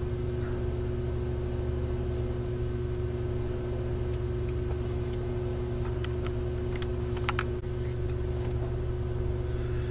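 Steady low mechanical hum made of several even tones, with a few faint clicks about six to seven and a half seconds in.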